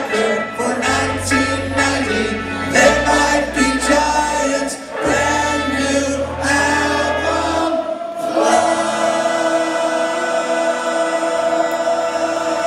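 Rock band playing live, with several voices singing together in choir-like harmony over bass. About eight seconds in the singing ends and the band holds one long final chord.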